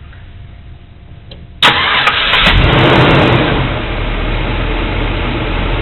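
Car engine being started: it fires abruptly about a second and a half in, comes up loud, then settles to a steady idle.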